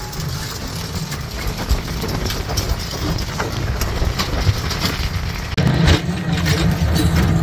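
A vehicle engine running with a steady low hum and scattered rattles and knocks. It grows louder about five and a half seconds in.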